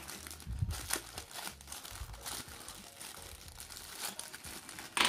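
Small clear plastic zip bag crinkling as it is handled in the fingers, a steady run of irregular crackles.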